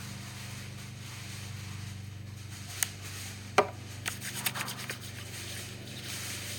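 Hands rubbing antibacterial hand gel together: two sharp clicks about three seconds in, then a quick run of short sticky rubbing and slapping sounds for a couple of seconds, over a steady low hum.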